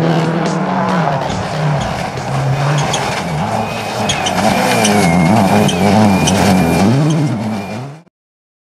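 Rally car engine at full speed, its pitch climbing and dropping again and again through gear changes and throttle lifts, with sharp pops in the middle stretch. It cuts off suddenly near the end.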